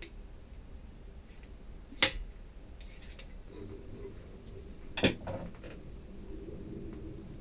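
Two sharp metallic clinks about three seconds apart, the second with a short ring, amid quiet handling of a chrome galley hand-pump faucet and its parts on a table.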